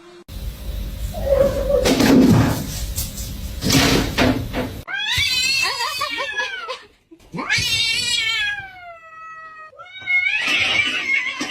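A cat yowling: two long drawn-out meows, about halfway through and again a couple of seconds later, the second sliding slowly down in pitch. Before them, a few seconds of rustling and knocks.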